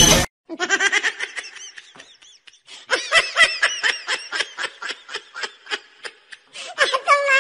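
A person laughing in quick repeated bursts, about four or five a second, with a pause of about a second between two runs and a higher, more drawn-out laugh near the end.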